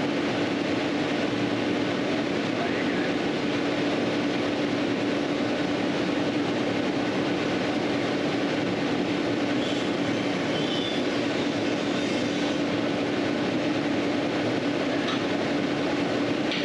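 Steady machine-like drone: an even noise with a constant low hum, unchanging throughout.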